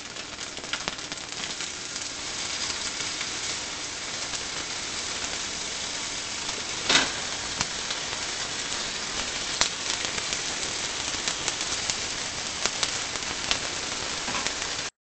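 Pork shank chops frying in a hot, lightly oiled nonstick pan on medium-high heat: a steady sizzle with scattered spits and crackles, and a louder flare about seven seconds in. It cuts off suddenly just before the end.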